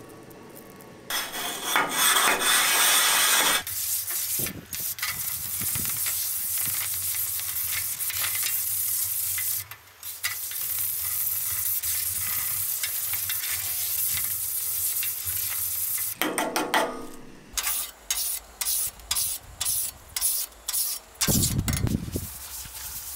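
Pumice grill-cleaning brick scrubbed across a hot steel flat-top griddle, the cleaning liquid sizzling under it in a steady hiss. Near the end the sound breaks into short scrubbing strokes, about two a second.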